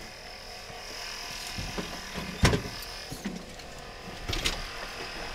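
Scattered knocks and clothing rustle as people squeeze out of a tiny microcar's cramped cabin, with one sharp knock about two and a half seconds in.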